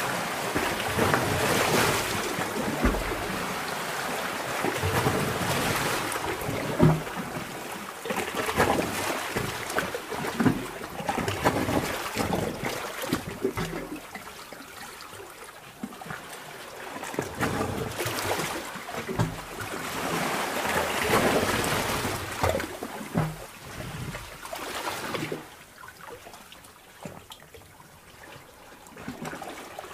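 Underwater sea-cave ambience: water surging in slow swells, with bubbling and trickling. It grows quieter near the end.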